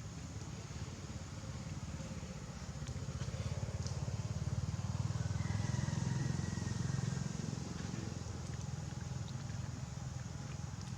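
A motor vehicle engine running as it passes, growing louder to a peak about halfway through and then fading.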